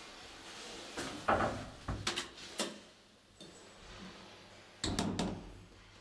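Old elevator's doors and door lock: a handful of sharp clunks and clicks in the first half, then a louder group of knocks about five seconds in.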